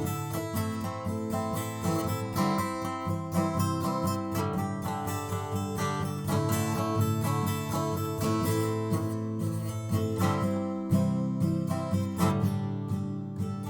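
Background music: a strummed acoustic guitar piece, fading out near the end.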